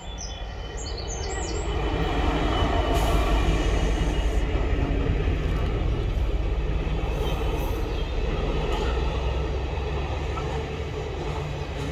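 Container freight train passing slowly over a railway bridge overhead: a low rumble of wheels on the rails that swells over the first two or three seconds, then holds steady.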